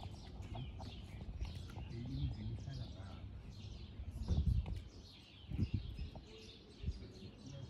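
Birds chirping steadily in many short, high, falling calls, over a faint low murmur of voices, with a couple of low thumps near the middle.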